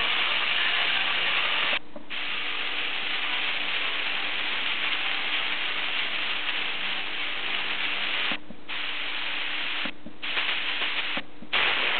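FM radio static from a Sony XDR-F1HD tuner: a steady hiss where reception is weak or absent, cut by four short silences as the tuner steps up through the band.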